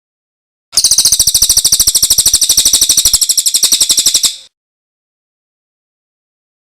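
Recorded songbird trill: one rapid, even run of high chip notes, about a dozen a second, lasting about three and a half seconds before cutting off sharply.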